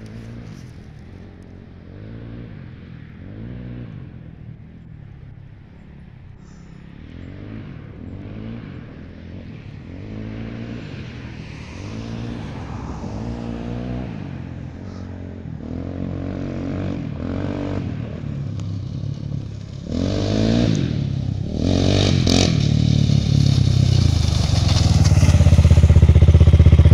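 A Honda TRX quad's big-bore 416cc four-stroke engine, fitted with a JE piston, revving as it is ridden. Its pitch rises and falls over and over, growing steadily louder as it comes nearer, and it is loudest at close range near the end.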